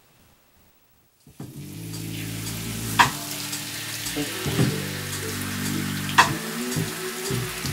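Shower spray hissing, starting suddenly about a second and a half in, over low sustained music notes that change a few times. Two sharp taps come about three seconds apart.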